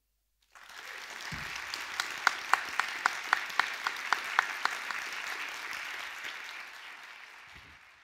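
Audience applauding. The applause starts about half a second in, with a run of loud, close claps at about four a second in the middle, then fades out near the end.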